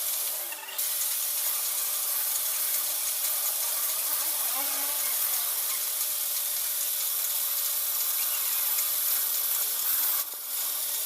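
Metal lathe running with a tool cutting, a steady rasping, scraping noise. It drops away briefly just before a second in and again near the end.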